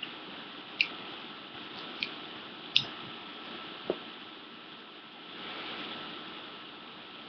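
Someone eating a salad: a few short, sharp clicks about a second apart, a fork tapping against the bowl, followed near the end by a soft rustle of movement close to the microphone.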